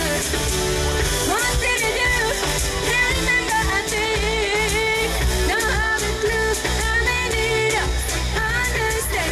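Live pop music: a woman singing into a microphone over an electronic band backing with a steady bass and beat, heard from the audience.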